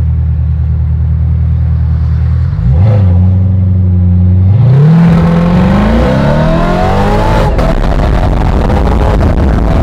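Straight-piped C7 Corvette ZR1's supercharged V8, heard from inside the cabin: it idles, the revs rise briefly, then the car launches hard with the engine pitch climbing steadily. The climb breaks for an upshift near the end and the engine keeps pulling.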